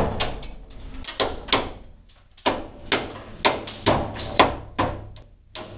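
A hammer knocking the remaining shards of broken patterned glass out of a wooden window frame: a dozen or so sharp, irregular knocks, with a short pause about two seconds in.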